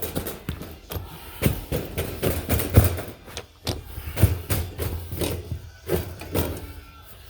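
Carpet being worked into place by hand: a rapid, irregular run of thumps, taps and scrapes as the carpet is pushed and tucked.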